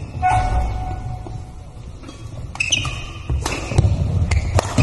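Badminton rally in a reverberant sports hall: court shoes squeaking on the floor and a few sharp racket strikes on the shuttlecock near the end.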